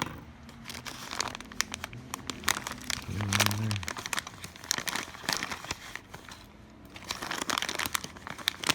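Plastic packaging crinkling and rustling as small parts are handled and sorted, with many irregular small crackles and clicks. A brief low hum comes a little over three seconds in.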